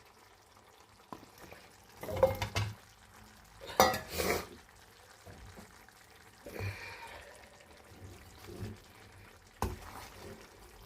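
Chopped potatoes and carrots going into a pan of frying chicken and being stirred with a spoon: a few short scraping clatters against the pan, the loudest about two and four seconds in, and a sharp knock near the end.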